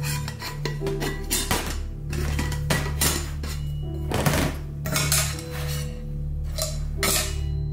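Background music with a steady beat, over several light metallic clinks and taps as the lid of a Snow Peak Aluminum Trek 700 aluminium mug-pot is handled and lifted off.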